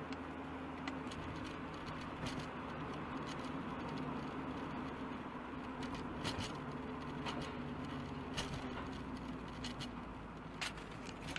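Steady road and engine noise of a car driving on a highway, heard from inside the cabin, with a few light clicks and rattles.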